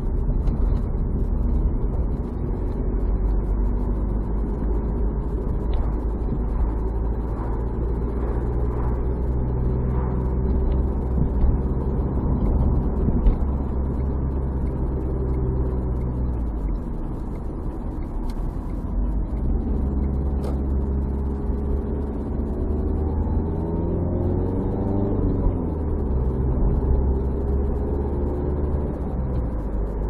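A car's engine and tyre noise heard from inside the moving car: a steady low drone. The engine note shifts pitch a few times, with a stretch of rising and falling pitch a little past the middle.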